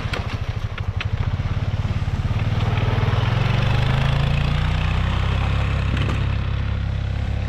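Single-cylinder four-stroke ATV engine running under way with a pulsing note, its pitch rising slightly a few seconds in, over a steady rushing noise of wind and tyres. A few sharp clicks come in the first second.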